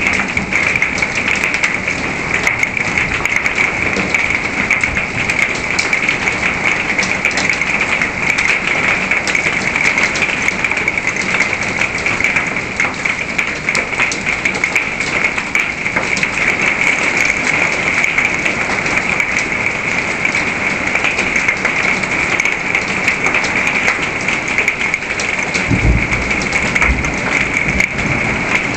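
Heavy rain mixed with dime- to quarter-sized hail pelting a wooden deck: a dense, steady patter of countless small hits. A brief low rumble sounds near the end.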